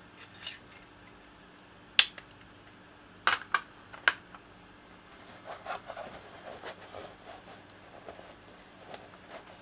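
Hard plastic parts of a fuel cell kit being handled on a desk: one sharp click about two seconds in, then three clicks close together a second later as the cell is pressed onto its plastic base. After that come softer, scattered handling and rustling sounds.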